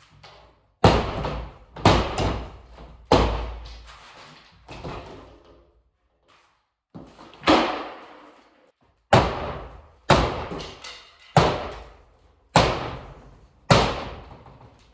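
Small sledgehammer striking wall panels from behind to knock them out of a divider wall: about ten heavy blows, each with a short ringing tail, roughly one a second, with a pause of about two seconds near the middle.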